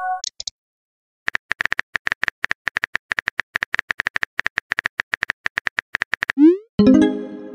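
Phone keyboard typing sound effect: a rapid run of short taps for about five seconds, then the rising whoosh of a text message being sent near the end, followed by a brief tone.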